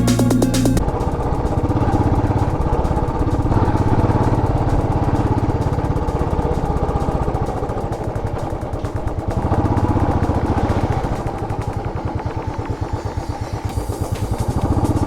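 Royal Enfield Classic 500 single-cylinder engine running under way, its firing pulses coming thick and even. Background music cuts off about a second in.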